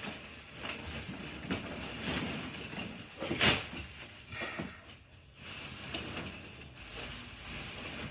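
Heavy paper bags of building material being shifted and dragged across the floor: uneven scraping and rustling, with a sharp knock about three and a half seconds in.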